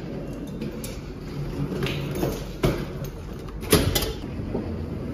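A door being handled: a few light knocks and two sharp clunks about a second apart, over a steady low hum.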